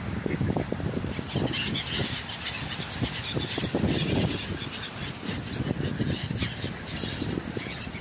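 A flock of mallard ducks quacking in a dense, overlapping run of short calls, with gulls' higher-pitched calls mixed in over most of the stretch.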